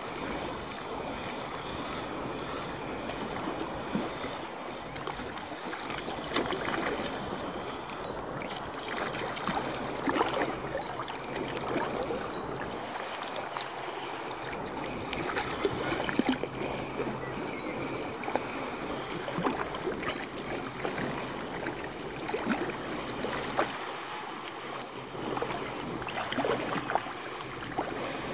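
Small waves lapping and sloshing close to the microphone, with scattered light ticks and clicks.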